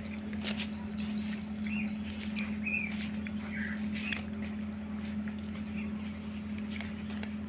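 Short, high chirps about every second or so over a steady low hum, with a few soft clicks as a cat laps water from a plastic plate.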